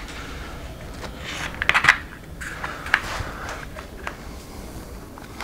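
Light plastic clicks and scrapes as a receiver box is pressed into an RC buggy's plastic chassis and its wires are pushed into place with a hex key. The clicks come in a quick cluster about one and a half to two seconds in, then singly near three and four seconds.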